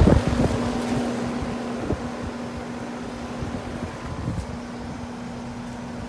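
Lennox Value Series outdoor unit running: condenser fan and compressor giving a steady hum with a constant low tone. Wind rumbles on the microphone at the start and dies down within about two seconds.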